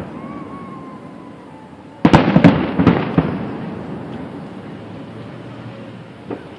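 Aerial display fireworks shells bursting: a quick cluster of about four sharp bangs about two seconds in, rolling and echoing as they fade, then one small pop near the end.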